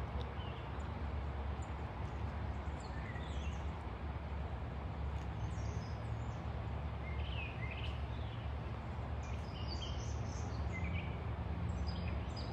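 Scattered short bird chirps and calls, several quickly rising or falling in pitch, over a steady low rumble.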